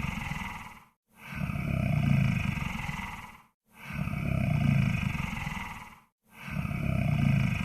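Monster snore-breath sound effect: deep, growling snoring breaths repeating in a regular rhythm. Each lasts a little over two seconds, with a brief silent gap before the next.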